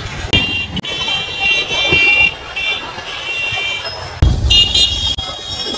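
Two-wheeler horns honking in street traffic: several steady, high-pitched honks, some long, over traffic noise, with a sudden low rumble about four seconds in.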